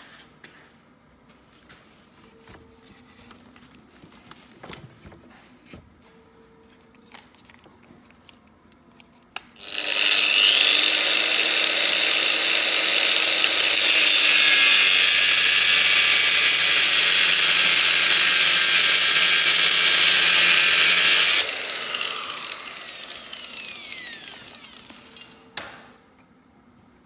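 Grinder cutting a slot into the head of an anti-theft shear bolt: quiet handling clicks, then about ten seconds in the grinder starts and cuts metal with a loud, steady hiss for about twelve seconds. It is then switched off and winds down with a falling whine.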